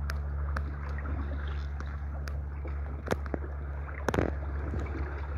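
Water rushing and gurgling along the hull of a 23-foot schooner-rigged sharpie under sail, with a few sharp clicks and knocks scattered through, the loudest about three and four seconds in. Muffled by the plastic bag over the microphone.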